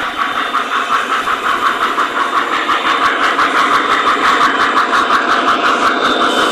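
O-gauge model train locomotive running on the layout, its onboard engine sound playing with a fast, even pulse.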